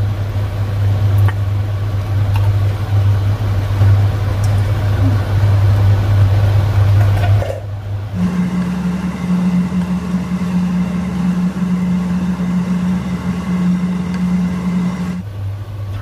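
Steady low hum of a kitchen appliance running beside the stove. About halfway through it breaks off briefly and comes back as a higher steady hum, which drops back to the low hum just before the end.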